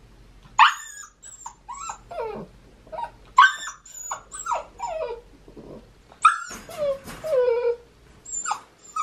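Chocolate labradoodle puppy whining and yelping: a string of short, high cries that slide down in pitch, the loudest coming near the start, in the middle and about two-thirds through. The puppy is crying at being shut in its crate.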